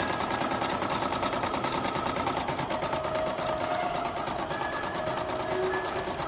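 DOIT DT9090 computerised sewing and embroidery machine running at speed: a fast, steady train of needle strokes.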